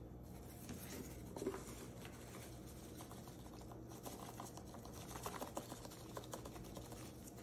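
Faint, quick ticking and pattering of a large plastic garlic-powder shaker being shaken over raw salmon fillets, the clicks growing denser in the second half.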